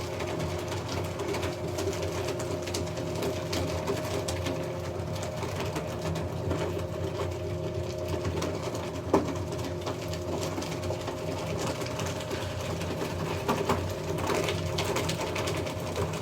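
Electric paper shredder running steadily, its motor humming while it cuts through sheets of paper documents with a dense crackle. There is a sharp click about nine seconds in, and the crackling gets busier near the end.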